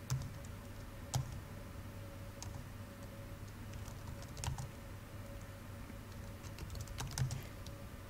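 A handful of separate key clicks on a laptop keyboard, with long pauses between them, over a faint steady hum.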